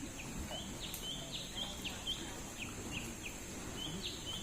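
Small birds chirping: a quick string of short calls, some falling sharply in pitch, over a steady high-pitched hum.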